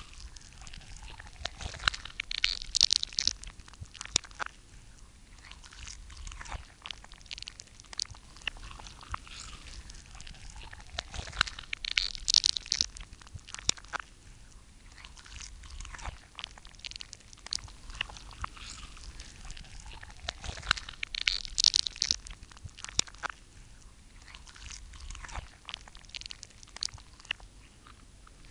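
Crunching, chewing-like clicks and crackles given to an animated creature, irregular throughout, with three louder crackling flurries roughly ten seconds apart.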